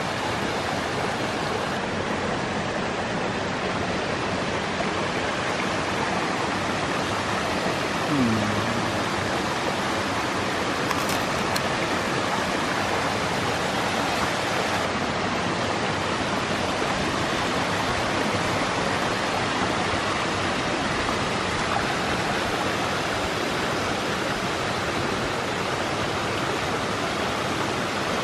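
Mountain stream and waterfall rushing over rocks, a steady, even rush of water.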